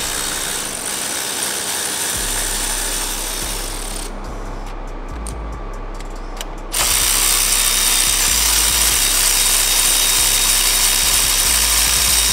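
Cordless electric ratchet running on bolts at a diesel truck's turbocharger: one run for the first few seconds, a few clicks, then a louder, longer run from about halfway with a faint high whine.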